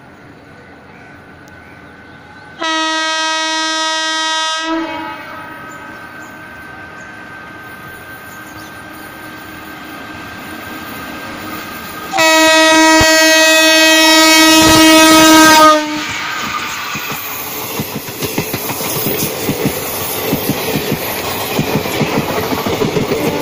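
Locomotive horn sounds twice as a passenger express approaches: one blast of about two seconds about three seconds in, then a louder blast of about three and a half seconds near the middle. Then the train passes close by, its coach wheels clattering rhythmically over the rail joints.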